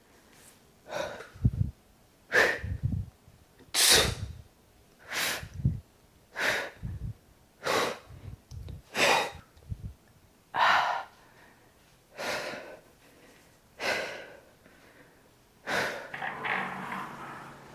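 A person breathing out hard in a steady rhythm, a dozen or so sharp, hissing exhales about every second and a half, some with a soft thud beneath them, like breaths on the effort of exercise reps.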